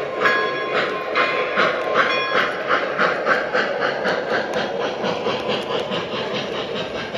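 Weaver O gauge Southern PS-4 Pacific steam locomotive's Proto-Sound 3.0 sound system chuffing in an even rhythm of about two to three beats a second. Under it runs a steady rumble of the model's metal wheels rolling on the track as the passenger cars pass. The chuffing fades slightly toward the end.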